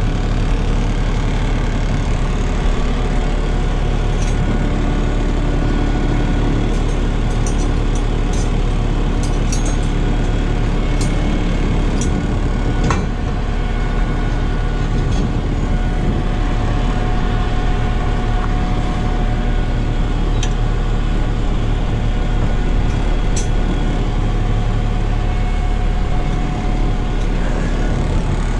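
Tow truck's engine idling steadily, with a few short light metallic clicks over it.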